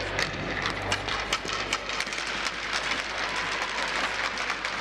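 Ice hockey rink noise: an irregular scatter of sharp clicks and knocks over a steady background, from sticks, skates and pucks on the ice or sparse clapping. A low hum dies away just after the start.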